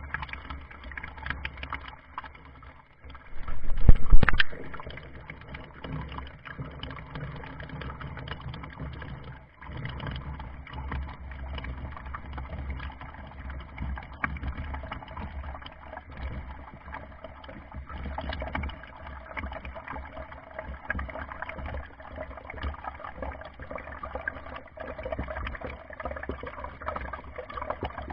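Water sloshing and gurgling around a Lego model boat, with many small knocks and clicks. About four seconds in there is one loud, low burst lasting about a second.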